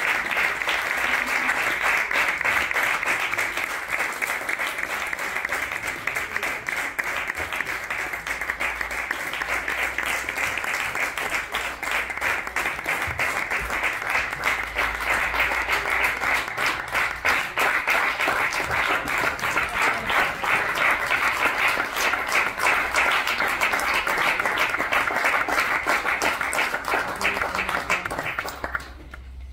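A small audience applauding, many hands clapping steadily, dying away near the end.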